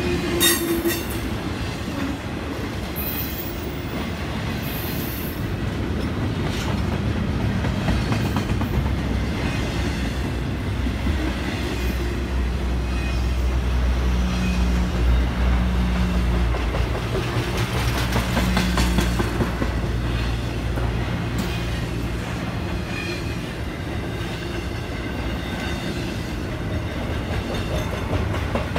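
Intermodal freight cars loaded with trailers and containers rolling past at steady speed: steel wheels rumbling and clattering over the rail joints, with a few brief high wheel squeals in the first few seconds. The rumble grows heavier about halfway through, then eases.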